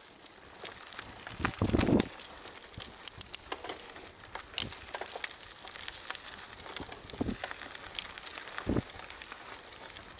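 Bicycle tyres rolling over a loose gravel road, a steady crunch dotted with small clicks and pops from stones. About two seconds in there is a heavier bump and rattle.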